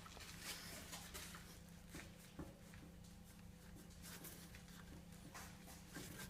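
Near silence: the Kia Ceed's left steering tie rod, rocked back and forth by hand, gives no knock, a sign that this side is sound. Only faint rustles and small handling clicks are heard over a low steady hum.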